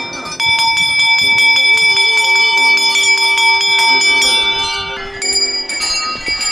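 Row of hanging brass temple bells struck one after another in a quick run, about five or six strikes a second, their ringing piling up into a steady clangour. The run breaks off briefly about five seconds in, then a few more bells are struck near the end.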